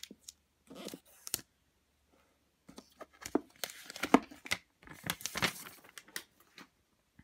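Paper wrapping being torn open by its pull tab and crinkled off a white plastic watch case. A brief rustle comes about a second in, then a longer stretch of tearing and crinkling with small clicks.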